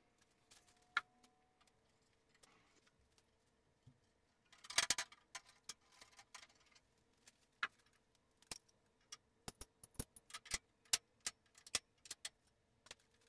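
Faint scattered clicks and metallic clinks of small steel parts on a sliding table saw being handled, with a short rattle about five seconds in and a quick run of clicks in the second half.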